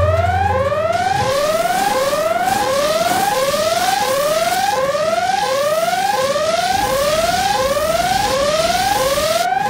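Warning alarm of a self-cleaning public toilet during its automatic cleaning cycle: a rising whoop repeated about one and a half times a second. It runs over a steady hiss of spraying water, and a low hum stops about a second in.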